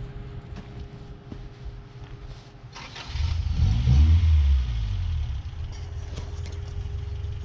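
Off-road truck's engine ticking over low, then taking throttle about three seconds in: a sharp rise to a loud low rumble that eases back to a steady pull as the truck moves off.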